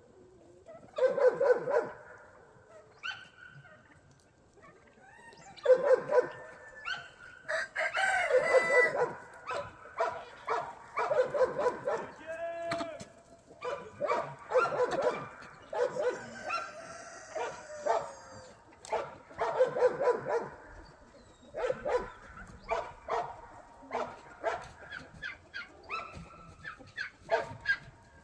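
Farmyard animal calls: a dog barking over and over while roosters crow, in repeated short calls all the way through.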